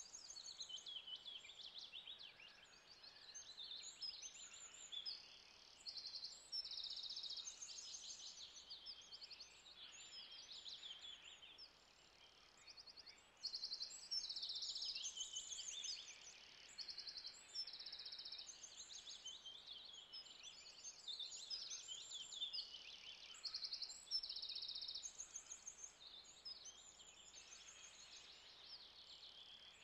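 Faint outdoor nature ambience: many high-pitched chirps and rapid trills overlapping without pause.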